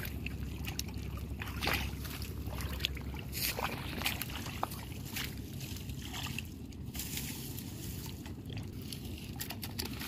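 Shallow muddy water sloshing and splashing as a man wades through it and reaches into it by hand, with scattered short splashes and knocks over a steady low rumble.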